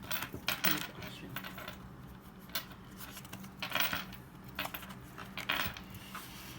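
Pokémon booster packs and trading cards being handled: a series of short, crisp rustling and crinkling bursts, about half a dozen, over a faint steady low hum.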